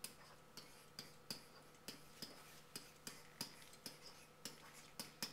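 Marker tip tapping and stroking on a whiteboard as a word is written by hand: faint, irregular clicks about three a second.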